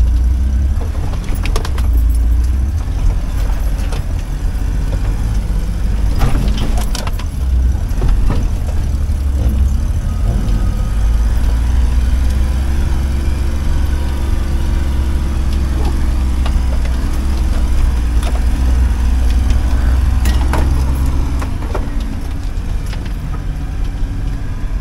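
A small 4x4's engine running hard over rough off-road ground, heard from inside the cab: a strong low rumble whose pitch rises and falls in the middle stretch, with clunks and rattles as the body jolts over bumps.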